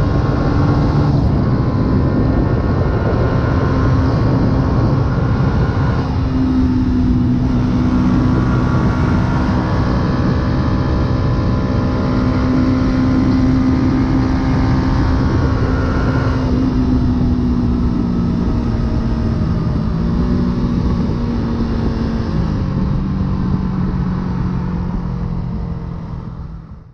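2008 Yamaha YZF-R125's single-cylinder four-stroke engine through a full aftermarket exhaust, running at a steady cruising pitch with wind rush. The pitch shifts a few times, and the sound fades out near the end.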